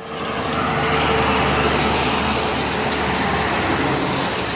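Heavy trucks passing close by on a highway: a rush of road noise that swells over the first second and slowly dies away, with a low engine drone under it.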